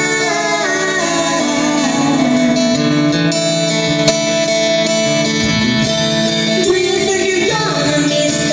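Live performance of a song: amplified electric guitar with a woman singing over it.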